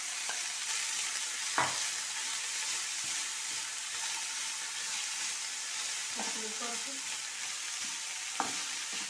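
Chopped vegetables sizzling in hot oil in a non-stick kadai, a steady hiss, as a metal spoon stirs them through the pan. A few sharp knocks of the spoon against the pan stand out, the loudest about one and a half seconds in.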